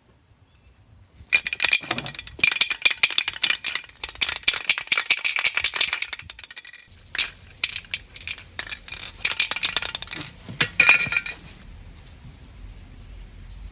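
Metal tools and parts rattling and clinking in rapid clicks, with a slight metallic ring, stopping for a moment midway and ending near the end.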